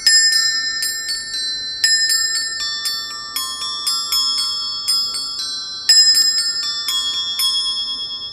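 A slow melody of high, bell-like struck notes, glockenspiel-like mallet percussion, each note ringing on and fading. The hardest strikes come at the start, about two seconds in and about six seconds in.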